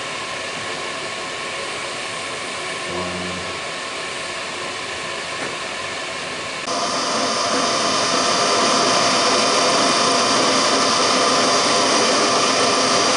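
Milling machine motor: a steady machine hum, then about halfway through a louder motor whine starts and runs evenly, as an engraving bit cuts a graduation mark into a dial collar.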